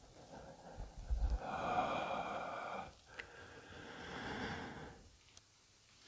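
A person breathing: two long breaths, one after the other, each about a second and a half.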